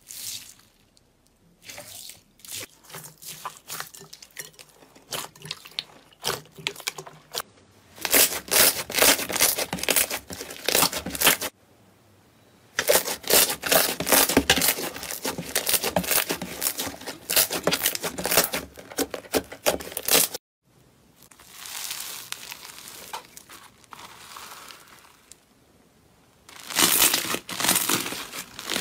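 Hands squeezing, pressing and stretching slime, including bead-filled and foam-bead slime, making dense crackling and popping. It comes in several short runs with brief pauses between them, the loudest crackling about a third of the way in and again near the end, and a softer hissing stretch in between.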